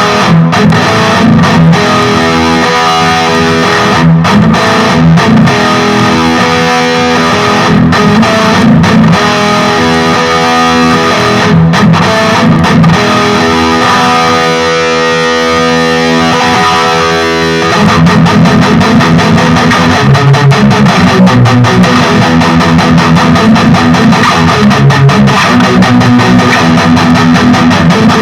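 Distorted electric guitar (an ESP LTD Deluxe with active pickups) played through a Peavey Vypyr 15 modelling amp on its high-gain XXX amp model. Sustained chords and single notes give way, about 18 seconds in, to a denser, louder rhythm part.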